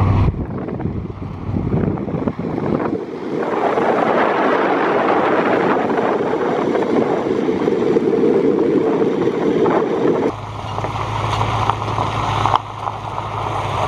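Wind rushing over a microphone held out of a moving pickup's window as it drives on a dirt road. About ten seconds in, the truck's steady low drone returns under the rush.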